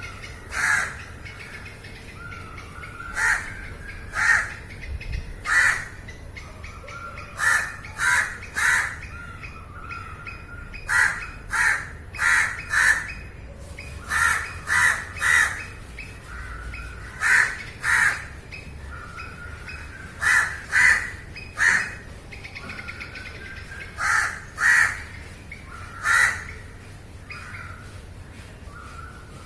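Crows cawing: short harsh caws repeated throughout, often in quick runs of two to four, with fainter calls between them.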